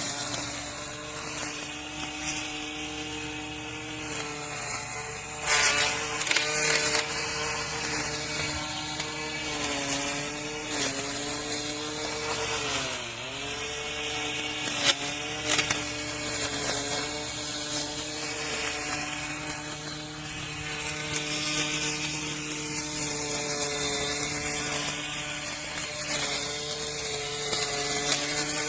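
Cordless 21 V battery weed trimmer running with a steady motor whine. The pitch sags now and then as the blade head bites into weeds, most deeply about halfway through. A few sharp clacks come as the blade strikes stems or debris.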